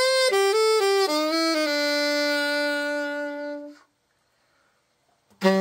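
Selmer Reference 54 alto saxophone played as a test after a full overhaul: a short falling run of notes settling into a long held low note, which stops about two-thirds in. After a brief silence a new phrase begins on low notes just before the end.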